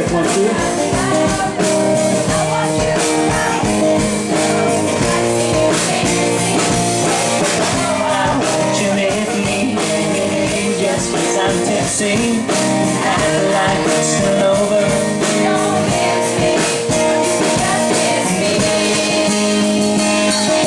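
A band playing live: a singer over guitar and drums.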